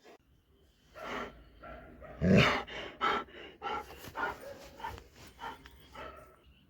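Doberman vocalizing in a run of short pitched barks and whines, the loudest about two and a half seconds in.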